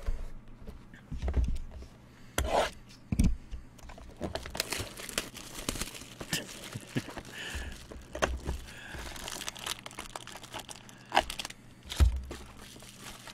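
Plastic wrapping being torn and crinkled off a sealed box of trading cards, a long run of crackling, with knocks and thumps of the cardboard box being handled; the loudest thump comes near the end.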